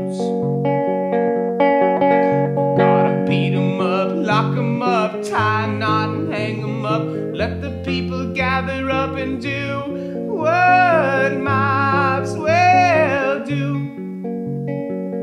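Acoustic guitar played with a man singing over it. Near the end he holds two long notes that rise and fall back.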